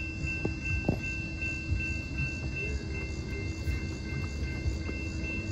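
Railroad grade-crossing warning bell ringing rapidly and steadily, about two to three strikes a second, over a low rumble: the crossing is activated for an approaching train.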